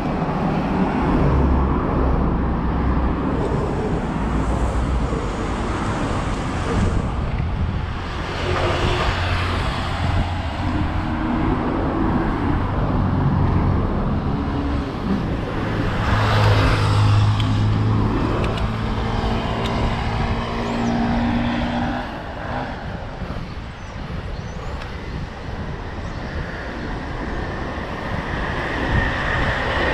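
Road traffic on the avenue beside the bike path, with motor vehicles passing close by; the loudest passes come about a third of the way in and again around the middle.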